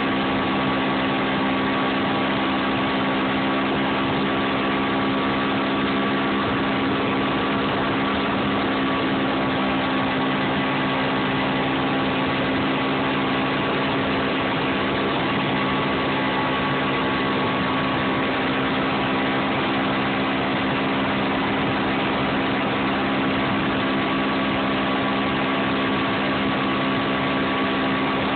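Mercury outboard motor running steadily at speed, pulling a tube rider: an even engine hum with a constant rushing noise over it.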